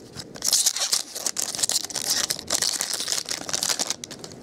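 Foil trading-card pack wrapper crinkling and crackling in the hands as it is torn open, with many small clicks. It stops shortly before the end.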